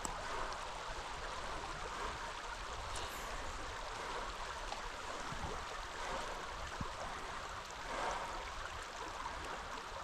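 Shallow creek water flowing steadily.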